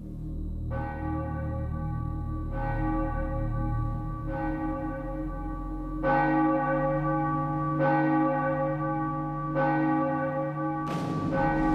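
A single church bell tolling slowly, struck seven times about every 1.8 seconds, each stroke ringing on into the next.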